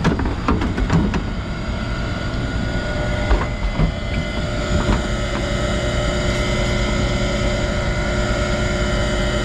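Rooftop air-conditioning unit running with a steady mechanical drone and hum, with a few knocks and clicks in the first several seconds.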